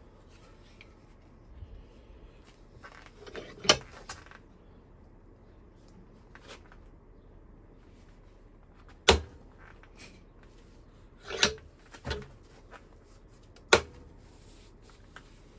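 Five sharp metal knocks, spaced irregularly, with a short scrape near the first, from tools working on an A/C compressor pulley held in a bench vise to drive out its worn bearing.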